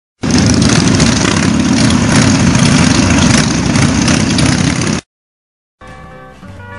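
Harley-Davidson V-twin motorcycle engine running loud and rough, cutting off abruptly about five seconds in. After a brief silence, slide-guitar rock music starts near the end.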